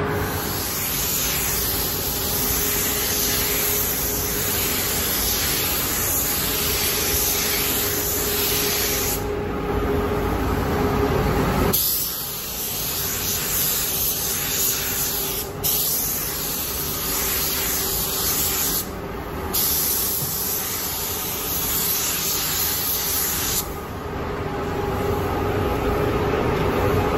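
Paint spray gun hissing as clear coat is sprayed, in passes that stop and start every few seconds, over a faint steady hum.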